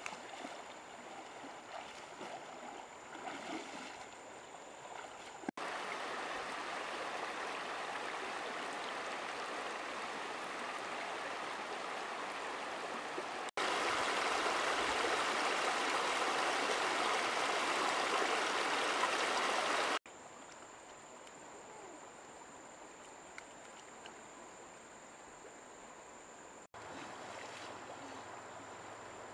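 Shallow river water running over rocks: a steady hiss of flowing water that jumps abruptly in level several times, loudest in the middle stretch. In the first few seconds, light splashing from someone wading through the shallows.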